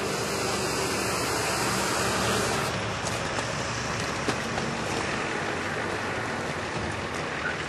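Road traffic noise: a vehicle engine running close by for the first two seconds or so, then a steady traffic hiss with a few faint clicks.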